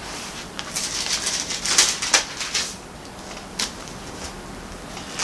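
Bible pages being leafed through and turned: a few soft papery rustles and swishes, bunched together about two seconds in and one more later.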